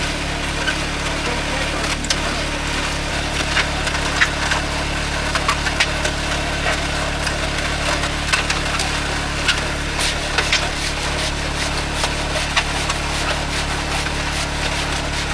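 An engine running steadily, with scattered irregular knocks and clatters of work over it.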